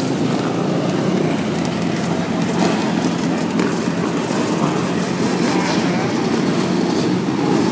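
Engines of a group of dirt bikes and quad ATVs running together as they ride up the street, a steady drone.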